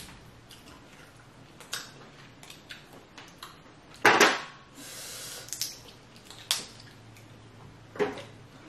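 Close-miked eating and handling of boiled lobster legs: scattered sharp clicks and cracks of shell. The loudest crack comes about four seconds in, followed by a brief hiss.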